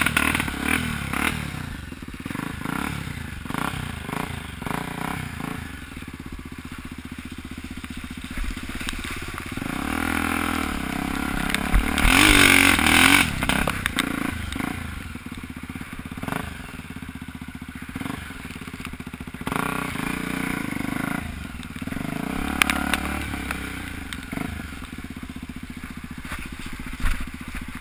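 Dirt bike engine heard from on board while riding a rough forest trail, its pitch rising and falling with the throttle and revving up hardest about twelve seconds in. Scattered knocks and rattles come from the bike going over the rough ground.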